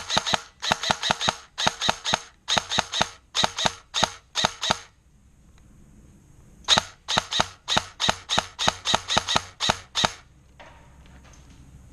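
Airsoft gun firing rapidly in short bursts of two to four sharp shots, with a pause of about two seconds near the middle before a second run of shots.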